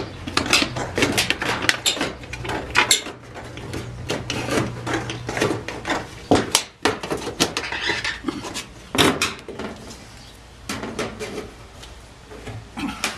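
Hand metal shears cutting through the trailer's thin sheet-metal siding: an irregular run of sharp snips and clicks as the blades close, with the loose offcut clattering.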